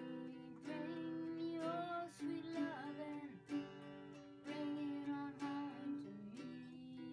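Quiet background music: a strummed acoustic guitar with a singing voice carrying the melody.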